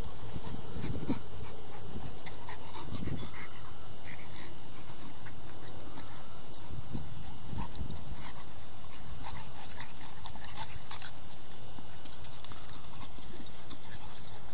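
Two pit bull puppies play fighting, making low play-fight noises and panting. A few sharp clicks, the loudest about eleven seconds in.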